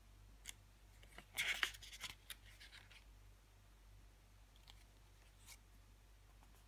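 Pages of a paper CD booklet being turned by hand: a short rustle of paper about a second in, with a few light clicks and taps before and after.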